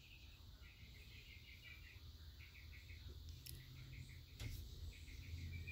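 Near silence: a low room hum with faint, short high-pitched chirping trills that recur several times, and two soft clicks in the second half.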